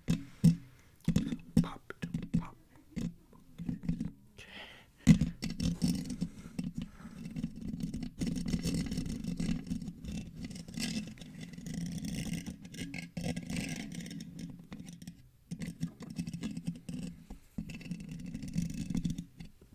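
Fingers scratching and rubbing directly on a microphone, close-up ASMR mic scratching. It starts as short separate scratches, then turns into continuous low, rumbling scraping from about five seconds in.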